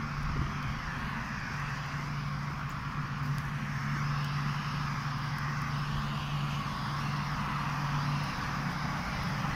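Parked electric commuter train's onboard equipment humming steadily: one constant low tone with a hiss over it.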